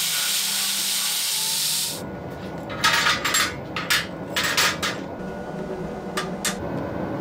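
Belt grinder grinding the end of a small steel strip, a steady hiss that stops about two seconds in. Then thin steel strips clink and scrape against each other and a perforated steel table, about a dozen sharp clicks, as they are stacked into a pattern-welding billet of pump-gun-barrel steel and 15N20.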